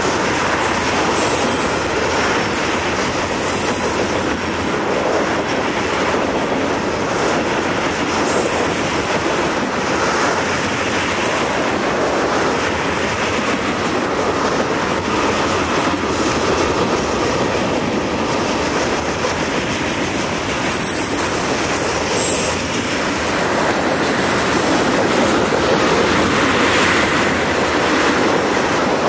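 Railway tank cars rolling past at close range: a steady rumble and clatter of steel wheels on rail.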